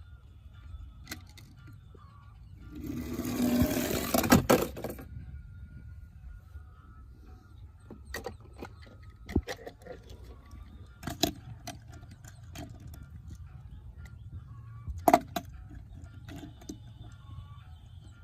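Die-cast toy cars being handled: scattered sharp clicks and clinks of small hard pieces knocking together, with a louder burst of rattling about three to five seconds in.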